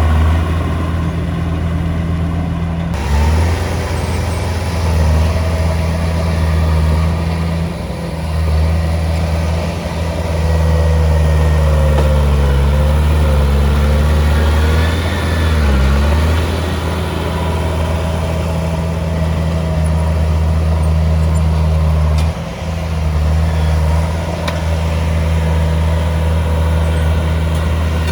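Heavy diesel engine running loudly and steadily, its pitch dipping and rising a few times around the middle as the load changes.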